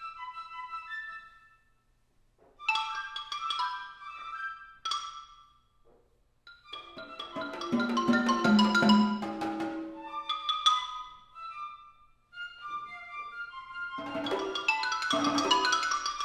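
Mallet percussion, marimba and glockenspiel, playing short, scattered flurries of ringing notes in the manner of birdsong, separated by brief pauses. The densest and loudest flurry comes near the middle.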